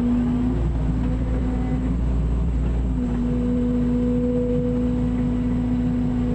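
Mini excavator's diesel engine running steadily with a constant low rumble and a steady hum that dips briefly twice.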